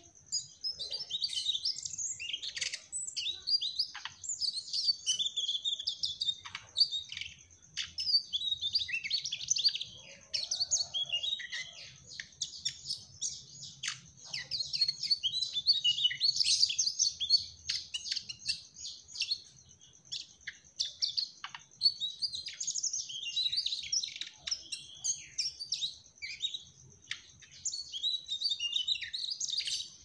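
Male mugimaki flycatcher singing a fast, nearly continuous twittering song of high chirps and trills, breaking off only briefly a few times.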